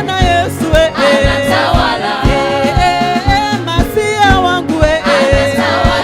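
Upbeat gospel worship music: a group of singers over a band with a steady drum beat.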